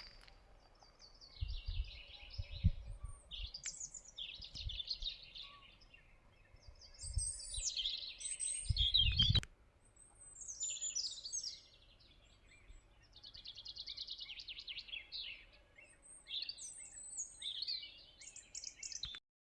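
Songbirds singing: a run of separate chirping phrases and rapid trills, one after another, with a few low thumps in between. The sound cuts off suddenly near the end.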